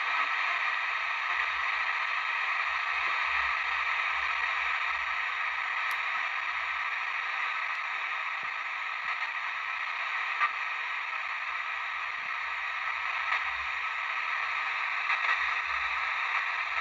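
Sony ICF-2001D receiver giving a steady hiss of static as it is tuned across the airband with no aircraft transmission found. A few faint clicks come from the tuning knob being turned.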